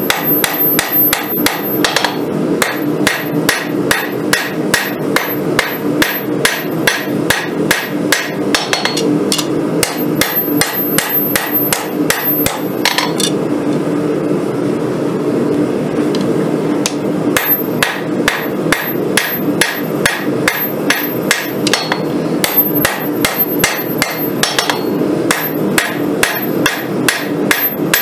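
Hand hammer striking a red-hot steel sword blank, forged from a rail spring clip, on an anvil at about two to three blows a second, over a steady background hum. The blows pause for a few seconds about halfway through, then resume.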